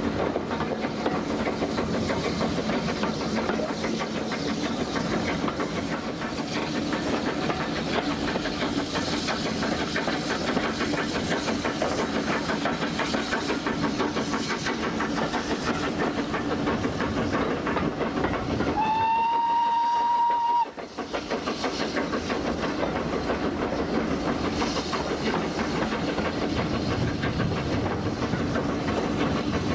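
A steam-hauled passenger train heard from a carriage window: steady rumble and clatter of the coach wheels on the rails. About two-thirds of the way through, the locomotive's steam whistle sounds once, a single slightly rising note held for about two seconds.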